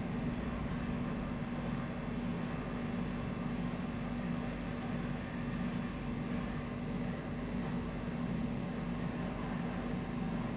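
Steady background hum with even hiss and a constant low tone, unchanging throughout; no distinct handling clicks or taps stand out.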